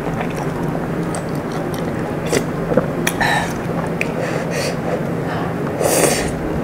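Close-miked eating of mala tang noodles: several short slurps and chewing sounds, the loudest slurp near the end, over a steady low hum.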